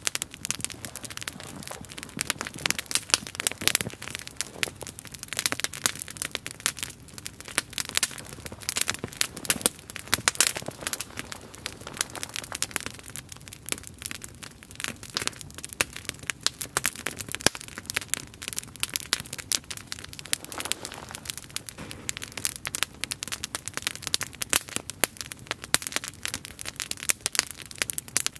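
Wood campfire crackling and popping, with dense, irregular sharp snaps throughout.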